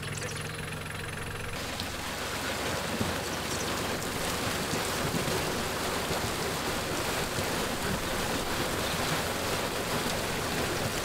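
A compact tractor's engine idles for about a second and a half. Then comes a steady rushing splash of water and live trout pouring down a loading chute into a transport tank, growing slightly louder.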